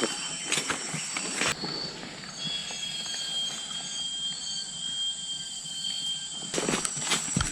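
Footsteps tramping along a rainforest trail over a high steady drone of insects. The footsteps stop about a second and a half in, leaving a single thin high tone with faint chirps, and start again near the end.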